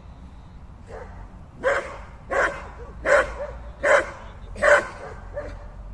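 Working dog barking: a run of five loud, sharp barks, about three-quarters of a second apart.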